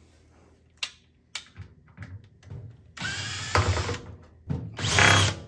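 Cordless drill/driver with a Phillips bit backing screws out of a microwave oven's metal side panel, running in two spurts of about a second each, half a second apart, one for each screw. A few faint clicks of handling come before.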